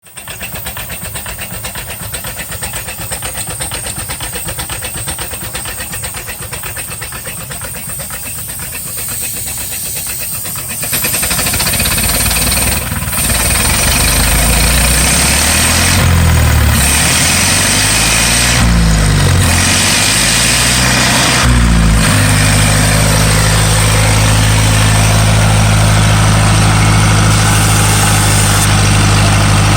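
Ford 9N tractor's four-cylinder engine converted to run on steam, chuffing rapidly and evenly. About eleven seconds in it gets louder as it drives a table saw, its pitch rising and falling for several seconds before it settles into a steady running tone.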